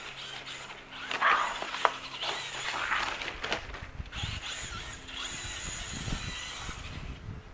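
Radio-controlled car's brushless electric motor whirring in short uneven bursts as the car is driven over grass, with a couple of sharp clicks. Wind rumbles on the microphone in the second half.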